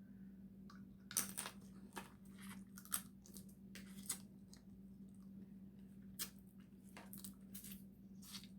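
Dungeness crab shell being cracked and pulled apart by hand while eating: faint, irregular crunches and cracks, about one a second.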